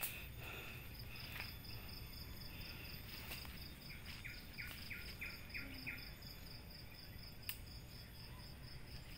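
Forest insect chirring in a steady, high-pitched pulsing rhythm, with a bird giving a quick run of about six short falling notes about four seconds in.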